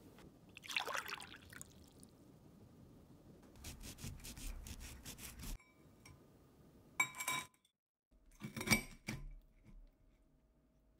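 Soft rustle and knock as a baking dish is set down on a cloth mat with oven mitts, then metal cutlery clicking and scraping on a ceramic plate while a knife and fork cut through cheese-topped toast. Two louder ringing clinks come about seven and nine seconds in.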